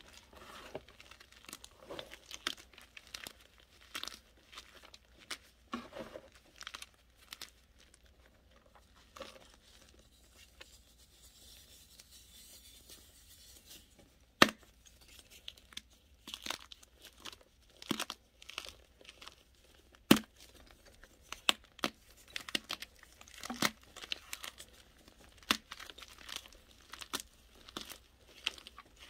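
Hands crushing and crumbling clumps of soft, chalky white powder in a metal tray: irregular dry crunches and crackles. It goes quiet for a few seconds about a third of the way in, then two sharp, loud crunches stand out among the rest.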